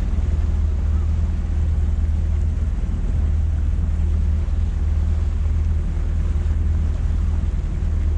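Boat engine running at a steady, deep drone, with wind buffeting the microphone and a wash of water noise.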